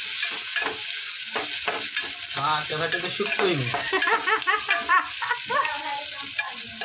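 Onions and spices frying in oil in an aluminium pot, sizzling steadily while a steel ladle stirs and scrapes against the pot with short irregular scrapes and knocks: the tempering stage of a sambar.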